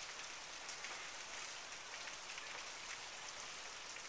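Heavy rain falling steadily in a thunderstorm downpour: an even hiss of rain with scattered drop patter.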